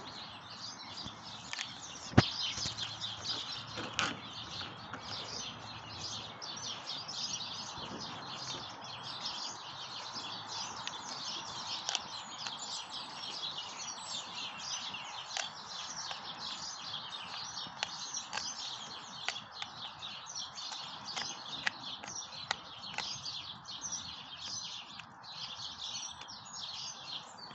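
Malamute chewing a pig's ear, with scattered sharp crunches, the loudest about two seconds in. Birds chirp steadily in the background.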